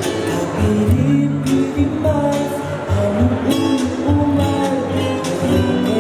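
Polynesian dance song: singing over strummed guitar with a steady beat.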